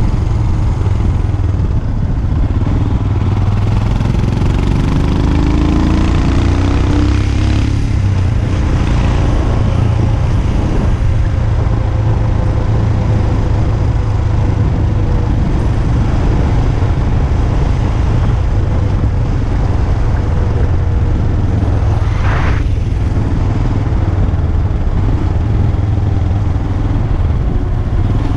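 Royal Enfield Himalayan's 411 cc single-cylinder engine running through a GPR aftermarket exhaust while the bike is ridden, a steady deep exhaust note. Around four to seven seconds in the engine note rises as the bike accelerates.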